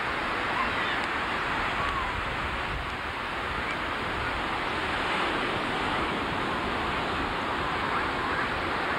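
Ocean surf breaking on the beach: a steady, even rush of water.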